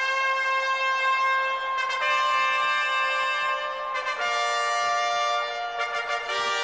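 A brass band plays long held chords together. The chord changes about every two seconds, four chords in all.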